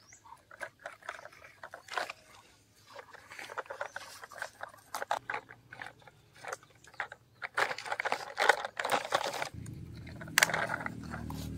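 Plastic toy construction vehicles, a road roller and a wheel loader, rolling over gravel and dry dirt, with irregular crunching and clicking of small stones under the wheels. A low steady hum comes in near the end.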